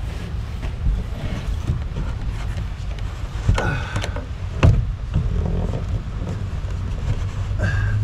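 A steady low mechanical rumble with a few sharp knocks, the loudest about halfway through.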